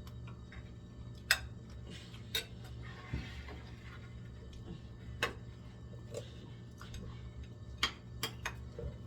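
Cutlery clicking against a plate or bowl while eating rice and cassava leaf soup: a handful of sharp clicks at irregular intervals, over a low steady hum.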